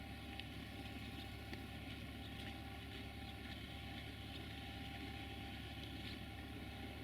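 A train moving steadily past on the track: an even running noise with a faint held tone and a few light scattered clicks.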